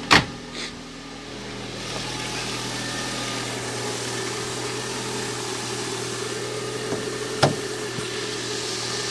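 Lada Priora's four-cylinder petrol engine idling steadily. A sharp knock comes just at the start and another about seven and a half seconds in.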